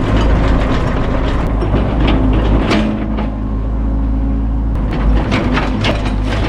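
A heavy machine's engine running steadily under load while a dead tree is pushed over, with repeated sharp cracks and snaps of breaking wood.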